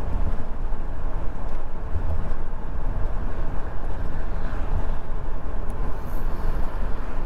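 Steady low rumble and road noise inside the cab of a moving Dodge-based RV, with the engine running normally.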